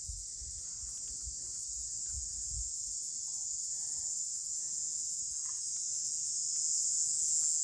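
Steady, high-pitched insect chorus, growing slightly louder toward the end, with a few soft low thumps in the first few seconds.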